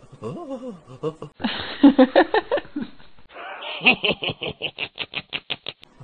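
Laughter sound effects cut one after another: a short giggling laugh, then a louder burst of laughing, then a fast, rhythmic run of laughs that trails off.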